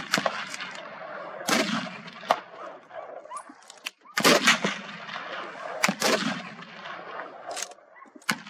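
Gunshots from hunting guns, about seven or eight in ragged succession one to two seconds apart, each followed by a long echoing tail.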